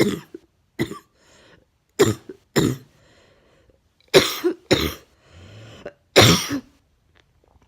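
A woman's deep, chesty cough: about six coughs, mostly in pairs, with breaths audible between the bouts.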